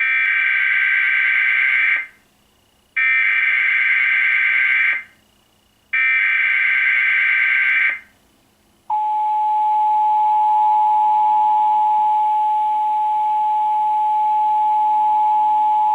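Emergency Alert System SAME header: three bursts of warbling digital data tones, each about two seconds long with a second of quiet between. About nine seconds in, the steady two-tone EAS attention signal (853 and 960 Hz together) begins and holds, marking the start of an alert message, here a Required Monthly Test.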